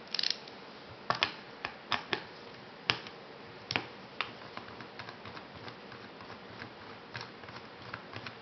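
Irregular sharp clicks and taps of small parts of a RAP4 T68 magazine being handled and worked loose, the loudest in the first four seconds and lighter ones after.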